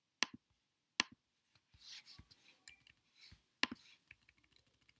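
Computer mouse clicking: three sharp clicks, two within the first second and one a little past the middle, with soft rustling noises between them.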